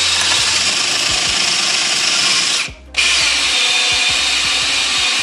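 Drill press running a 3/4-inch three-flute auger bit as it bores into an old 2x4, with a steady loud whir of motor and cutting. The sound drops out for a moment a little under three seconds in, then picks up again just as before.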